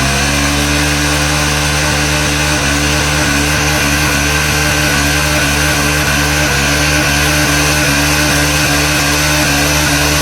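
Bajaj Dominar 400's single-cylinder engine held at high revs at a nearly steady pitch during a burnout, the rear wheel spinning to wear off the old rear tyre.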